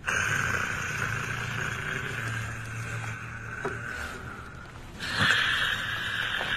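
A person snoring: long, noisy breaths with a low buzzing rattle, one breath lasting about four and a half seconds and the next starting about five seconds in.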